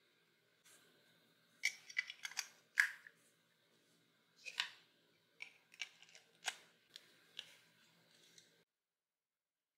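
Sharp plastic clicks and taps from a small battery-powered electric toothbrush handle as it is worked by hand: the battery compartment is opened, an AA battery slid in, and the end cap fitted back on. There is a cluster of clicks about one and a half to three seconds in, then scattered clicks until near the end.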